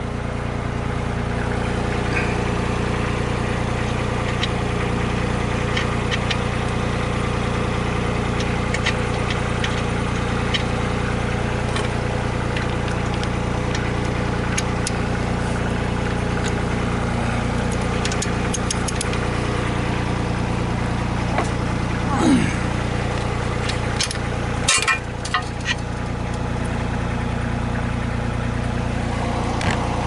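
Mini excavator's 25 horsepower Perkins diesel engine idling steadily, with scattered sharp metal clinks from the bucket coupler and pins being worked on.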